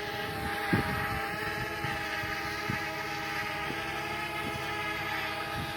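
Quadcopter drone hovering, its propellers and motors giving a steady multi-tone whine, with wind buffeting the microphone now and then.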